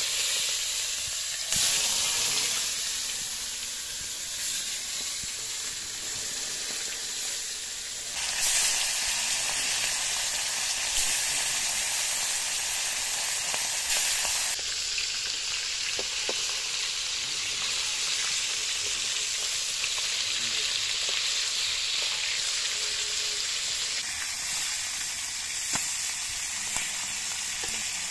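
Whole bata fish sizzling as they fry in hot oil in an iron kadai: a steady, loud frying hiss that changes in strength a few times.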